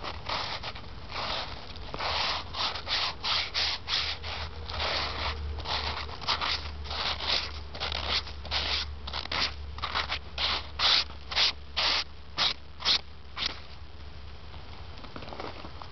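A gloved hand brushing snow off a flat stone grave marker: a run of short, quick sweeping strokes, about two a second, the loudest ones coming just before they stop near the end.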